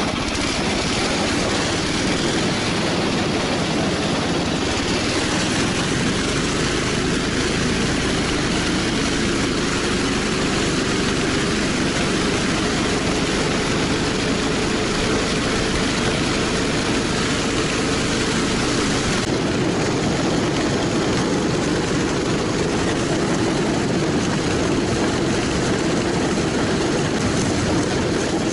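Small engine of a motorized snow towing unit running steadily as it pulls a loaded sled across the ice.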